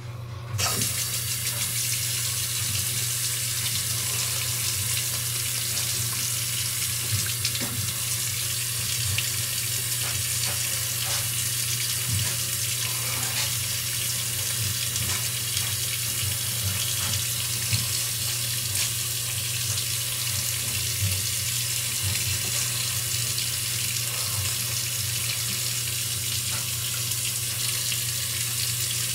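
Tap running steadily into a sink, coming on about half a second in, with a steady low hum underneath and a few faint clicks.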